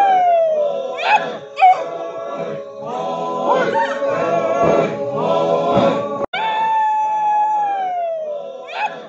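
Traditional Naga men's chant: a long high call held and then sliding down in pitch, followed by several voices chanting in short rising and falling phrases. About six seconds in the sound cuts off abruptly and the long falling call begins again.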